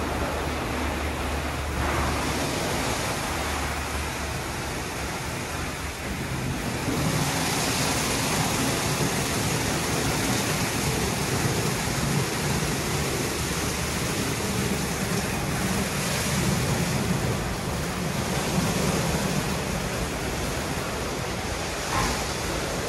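WashTec SoftCare Bravo rollover car wash running through its programme: a steady rushing of spray and machinery with a low motor hum underneath. It grows louder and brighter about seven seconds in.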